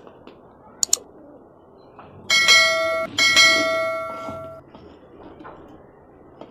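Subscribe-button animation sound effect: a quick double mouse click about a second in, then a bell ringing twice, the second ring fading out over about a second.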